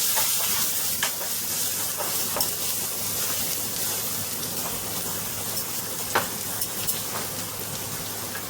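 Cumin seeds, asafoetida, ginger and garlic sizzling in hot oil in a pan, a steady hiss that eases slightly, with a few sharp clicks of a spoon stirring against the pan.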